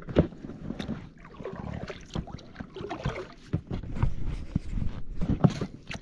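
A small boat being rowed: water splashing and irregular knocks against the boat.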